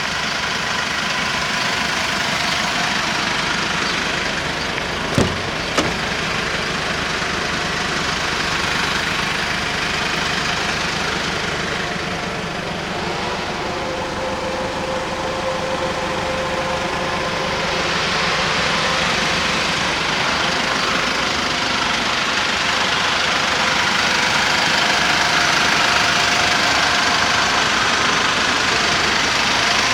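Mercedes-Benz Sprinter 516's four-cylinder diesel engine idling steadily, with two sharp clicks about five seconds in.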